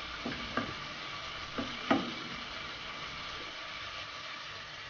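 Corn kernels frying in butter in a pot, a steady sizzle, while a wooden spoon stirs them and knocks against the pot a few times in the first two seconds.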